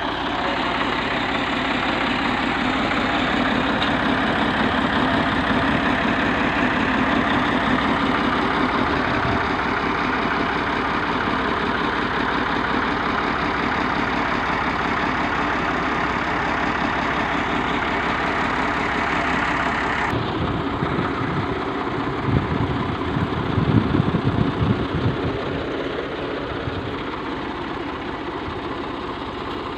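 Ford 4000 tractor engine running steadily close by. About twenty seconds in the sound changes, turning more uneven with a few louder pulses.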